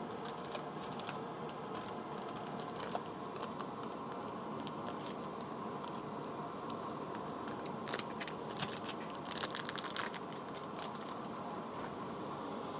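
Irregular small clicks and crackles from hand work at a microsoldering bench, over a steady fan hiss, with a quick cluster of clicks about eight to ten seconds in.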